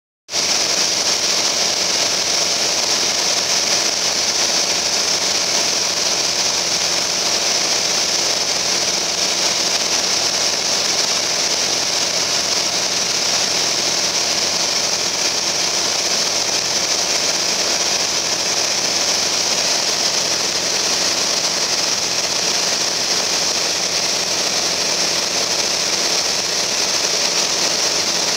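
Piper Cherokee Arrow's piston engine and propeller heard inside the cabin in level cruise: a steady, unchanging drone with a strong hiss over it. It cuts in abruptly about half a second in.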